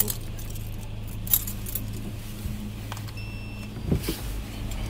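Keys jangling with a few light clicks as a person shifts about in a car's driver seat, over the steady low hum of the idling car.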